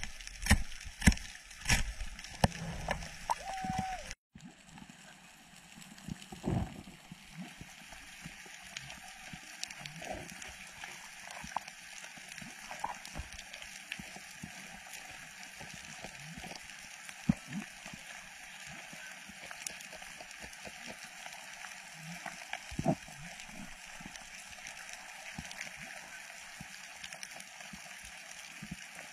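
Water sloshing and gurgling with scattered clicks and pops. Louder knocks fill the first four seconds, then the sound cuts off abruptly and gives way to a steady watery hiss.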